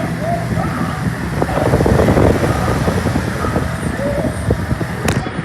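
Lasko 3723 20-inch box fan running: a steady motor hum under the rush of air, with rattling clicks that grow louder about two seconds in. A single sharp click near the end.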